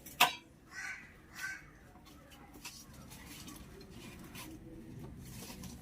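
A sharp click, then a crow cawing twice, about half a second apart, around a second in.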